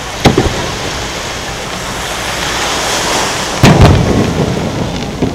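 Aerial fireworks shells booming. There is a sharp bang about a quarter second in, then the loudest boom with a rolling rumble about three and a half seconds in, and another bang near the end, all over steady background noise.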